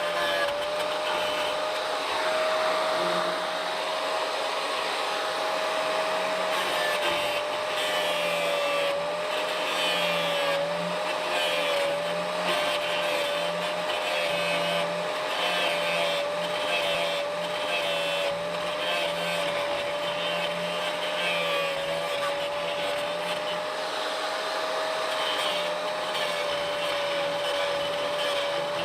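Angle grinder grinding away an old steel nut plate on the truck's frame: a steady motor whine whose pitch sags a little now and then as the disc bears into the metal, over the hiss of grinding.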